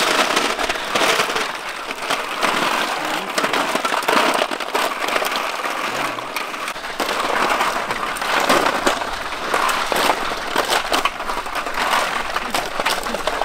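Many snail shells clattering and clicking against one another and against metal and plastic basins as hands sort through them: a dense, continuous rattle.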